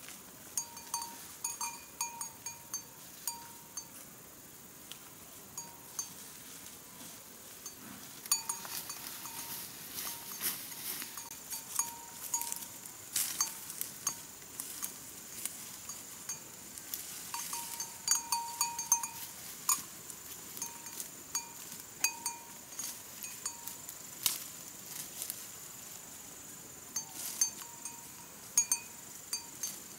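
A livestock bell on a grazing water buffalo's neck clinking irregularly, each clink ringing briefly at the same few pitches.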